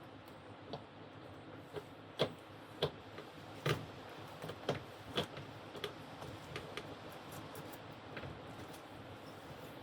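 Irregular light clicks and metallic knocks from hand tools working on a car's shock absorber and top strut mount, about a dozen scattered over several seconds.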